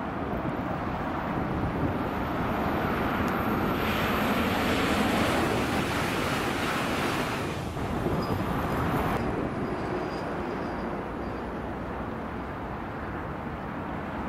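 A high-speed train rushes past, swelling from about 4 seconds in and dying away near 9 seconds, over a steady bed of motorway traffic noise.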